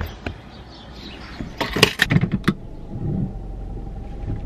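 Small pickup truck being started: a run of clicks and knocks, then the engine runs at a steady idle from about two and a half seconds in.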